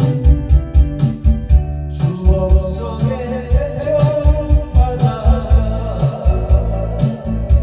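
Korean trot song playing: a steady dance beat with bass, keyboard and guitar backing under a melody line.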